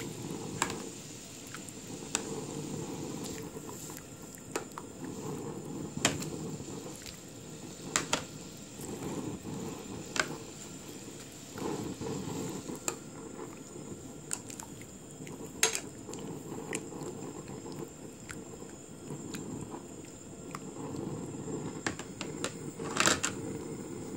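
Chicken pieces blanching in boiling water in a nonstick frying pan: a steady low bubbling, broken by occasional sharp clicks of metal tongs knocking against the pan as the pieces are turned.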